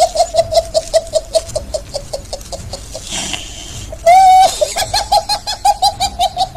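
A man laughing hysterically in rapid high-pitched bursts, about five a second, with a wheezing breath about three seconds in and a loud held squeal just after.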